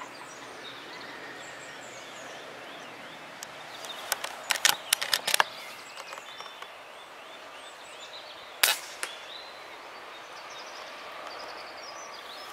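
Outdoor birdsong throughout, a quick irregular run of sharp clicks about four to five seconds in, then a single sharp crack of a PCP air rifle (FX Hybrid) shot about two-thirds of the way through.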